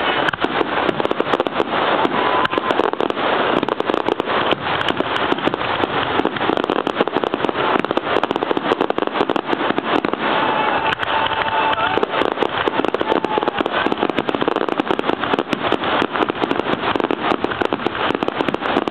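Fireworks finale barrage: aerial shells bursting in rapid, overlapping succession with continuous crackling, no pause between reports.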